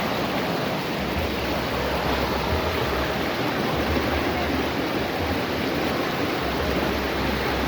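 Swollen river water rushing and churning steadily.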